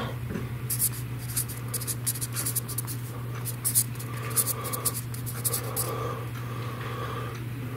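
Black felt-tip marker scratching and squeaking on a painted wall as a name is written, in quick, irregular strokes, over a steady low hum.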